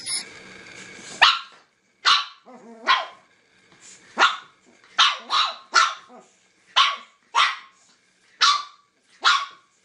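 A dog barking: about eleven sharp single barks starting about a second in, spaced irregularly, some coming in quick pairs.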